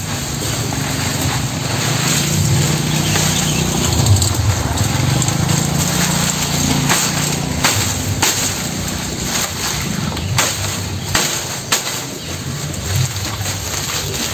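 Machete chopping green fodder grass stalks in a concrete feed trough: sharp, irregular strikes about once a second through the second half. A low engine hum runs underneath, strongest in the first half.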